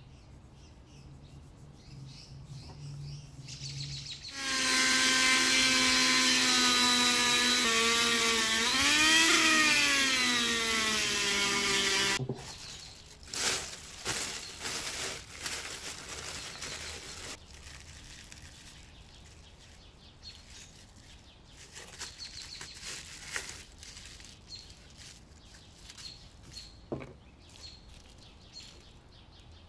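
A small electric power tool runs for about eight seconds with a steady motor whine. Its pitch dips, then rises and falls briefly as the load changes, and it cuts off abruptly. After it stops, clear plastic film crinkles as it is handled.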